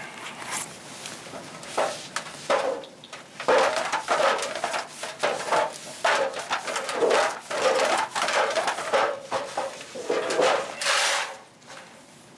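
A swipe cloth rubbed back and forth over a piece of sheet metal: a run of irregular scrubbing strokes that stops about a second before the end.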